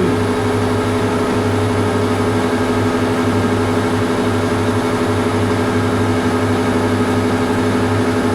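Metal lathe running under power feed while taking a 1 mm deep turning cut on round bar stock: a steady hum of the motor and gear train with the cutting noise under it.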